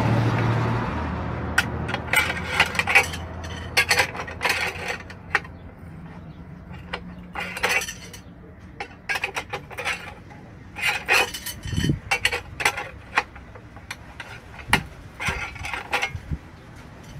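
Steel wire rod being bent into stirrups on a homemade bender: a scraping rush at the start, then an irregular run of sharp metallic clicks and clanks as the rod and bending bar strike the jig.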